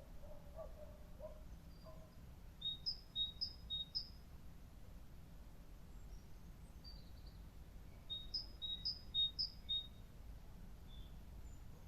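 Park ambience: a steady low background rumble with a songbird singing the same short phrase twice, about five seconds apart, each a run of three quick high two-note chirps. A few lower calls sound in the first two seconds.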